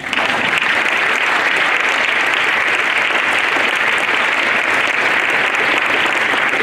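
Audience clapping, breaking out all at once and holding steady and loud.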